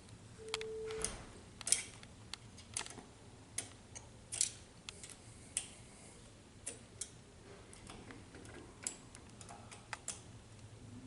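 Irregular small metal clicks and ticks from a hand tool working the screws of a multipoint door handle as they are tightened down, with a brief steady hum near the start.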